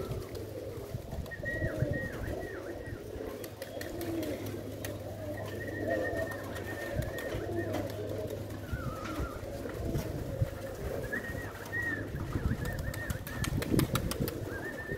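Pigeons cooing, several low burbling coos overlapping without a break. A thin, higher whistle-like note comes and goes over them, and a run of sharp clicks sounds in the last few seconds.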